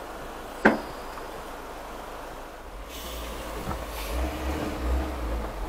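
A single sharp knock less than a second in, then a low vehicle engine rumble that builds from about three seconds in.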